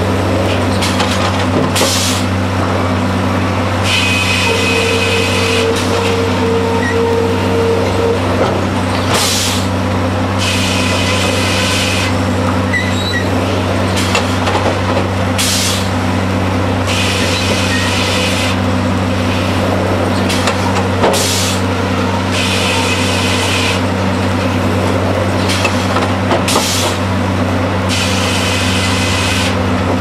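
Hurdle two-headblock circular sawmill running: a steady low drone of the mill's drive, with repeated bursts of the circular saw cutting through a log as the carriage feeds it, each cut lasting a second or two, about every two to three seconds.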